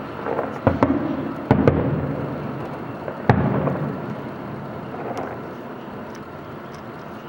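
Fireworks going off: a quick cluster of sharp bangs, then a single loud bang a little after three seconds. Each bang is followed by rolling rumble and crackle that dies away toward the end.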